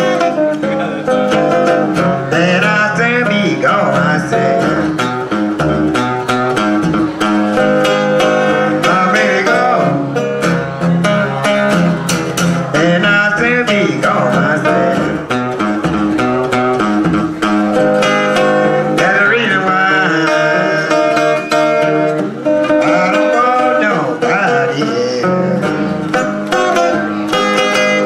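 Acoustic guitar playing country blues, with a harmonica played into a hand-cupped microphone, its notes bending and wavering over the guitar.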